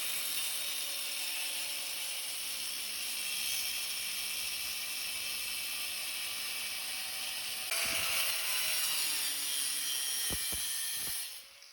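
A power tool cutting into a scrapped electric motor to get at its copper core: a steady, harsh high-pitched noise that changes a little under eight seconds in and cuts off just before the end.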